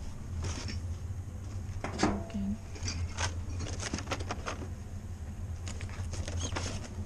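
Rummaging through a cardboard box of packaged candy and plastic items: irregular rustling, crinkling and light knocks of wrappers and cardboard, over a steady low hum.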